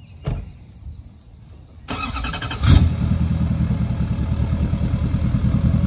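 A 2020 L5P Duramax 6.6 L V8 turbodiesel, deleted and straight-piped, cranking about two seconds in and firing with a loud burst, then settling into a steady, rhythmic diesel idle. A brief click comes just before.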